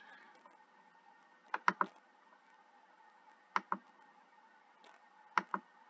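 Computer mouse clicking as presentation slides are advanced: three short clusters of two or three sharp clicks, about two seconds apart, over faint room tone.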